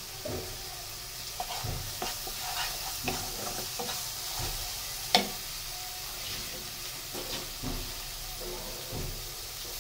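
Spice paste frying in hot oil in a wok, sizzling steadily while a wooden spatula stirs and scrapes it. Soft knocks of the spatula on the pan are heard, with one sharper tap about five seconds in. This is the masala being fried down (kashano) before the fish goes in.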